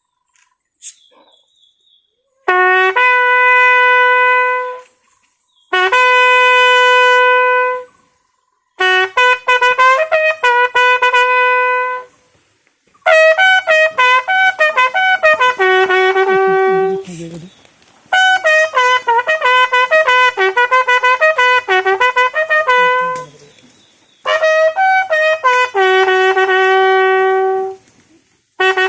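A bugle sounding a slow military call: phrases of long held notes on the instrument's few natural pitches, with short pauses between the phrases.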